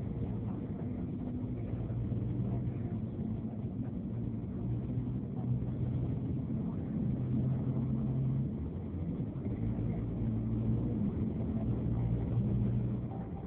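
Engine and road noise from inside a moving vehicle driving in city traffic: a steady low rumble with an engine hum whose pitch shifts several times as the vehicle speeds up and eases off.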